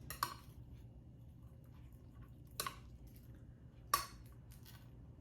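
Cutlery clinking against plates while food is served: three sharp clinks, the loudest about four seconds in, with a few fainter taps between.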